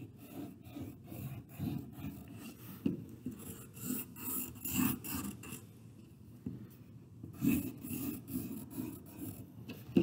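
Black pencil scribbling on paper in quick, irregular scratchy strokes.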